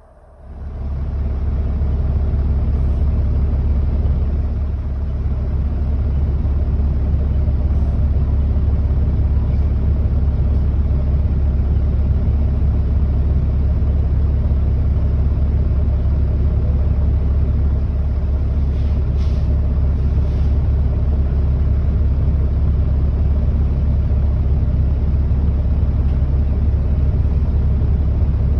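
Alexander Dennis Enviro400 double-decker bus heard from inside while under way: the engine's deep, steady rumble, which rises quickly in the first second or two and then holds level.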